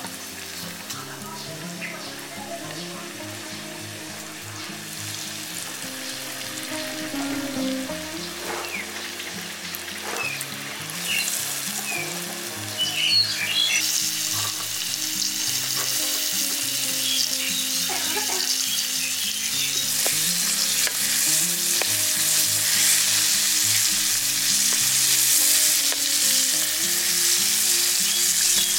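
Batter-coated balut eggs deep-frying in a wok of hot oil, sizzling and bubbling. The sizzle grows louder about a third of the way in, and a metal ladle stirs the eggs with a few clinks against the wok.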